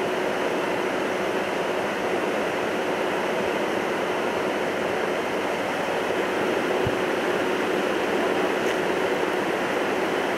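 Fast-flowing floodwater rushing, a steady, even noise with a faint hum.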